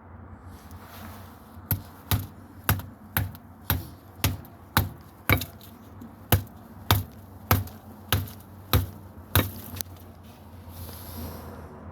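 A rock hammering a drone's LiPo battery pack: about fourteen sharp blows at roughly two a second, then it stops. The pack has not yet been punctured.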